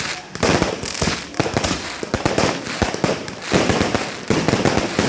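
Fireworks going off in quick succession: many overlapping sharp bangs, several a second, over a continuous noisy wash.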